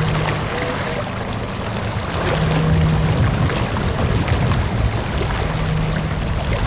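Steady low rumble of wind and water on the open ocean, with a low, even, horn-like tone sounding three times, each about a second long and roughly three seconds apart.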